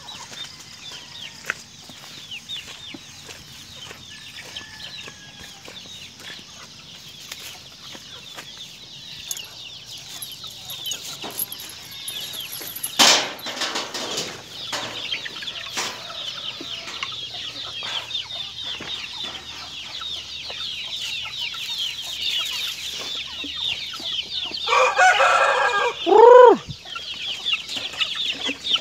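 A flock of chickens clucking and cheeping, the chatter growing denser in the second half. About halfway there is a single sharp knock, and near the end a rooster crows loudly, its call dropping in pitch as it ends.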